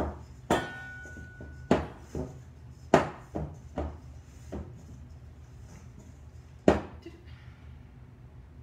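Bread dough kneaded by hand in a stainless steel mixing bowl: about eight irregular knocks and thumps of hands and dough against the bowl, most in the first five seconds and one sharp one near the end. After an early knock the metal bowl rings briefly.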